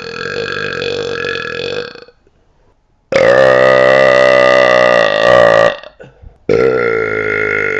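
A man's long, loud belches, forced by swallowing air: one ends about two seconds in, a louder one of about two and a half seconds follows a short pause, and a third starts near the end. Each holds a steady pitch.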